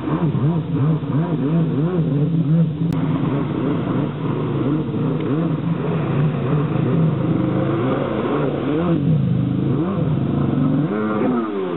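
Stand-up freestyle jet ski engine revving hard and easing off over and over, its pitch rising and falling in quick swoops as the rider throws flips, over the rush of spray. A single sharp click about three seconds in.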